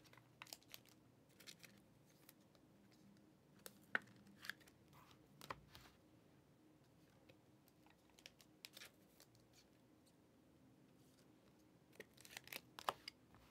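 Faint, scattered clicks, taps and rustles of trading cards and their packaging being handled, with small clusters about four seconds in and again near the end.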